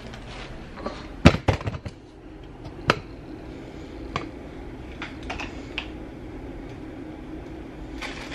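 Kitchen handling noise: sharp clicks and knocks, a cluster about a second in and another near three seconds, then lighter ticks, over a steady low hum.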